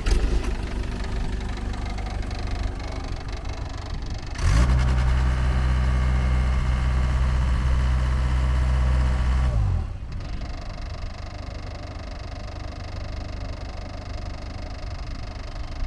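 Takeuchi TL26 track loader's 61 hp diesel engine running; about four and a half seconds in it is throttled up to a higher, louder steady pitch, held for about five seconds, then drops back to a lower speed near ten seconds.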